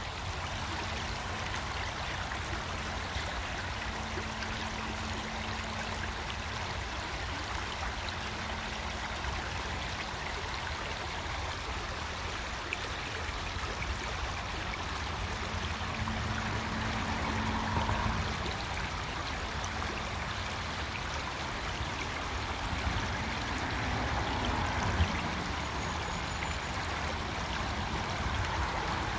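Creek water rushing steadily over rocks in a shallow stream.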